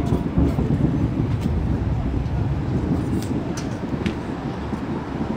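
Distant aerial firework shells of a finale barrage bursting in quick succession. The booms blend into a continuous low rumble, with a few sharper cracks standing out.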